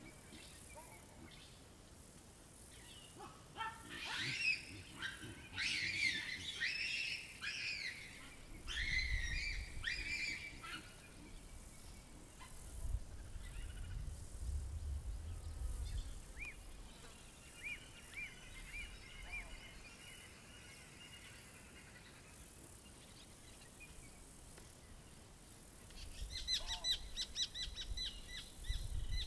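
Wild birds calling in African savanna. A burst of overlapping whistled and chattering calls lasts several seconds, a fainter trill runs through the middle, and near the end a Brown-hooded Kingfisher gives a rapid series of sharp, evenly repeated notes.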